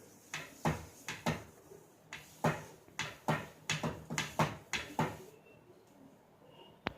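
A tissue rubbed over an oiled nonstick pan: a run of short wiping strokes, about two a second, stopping about five seconds in. A single sharp click near the end.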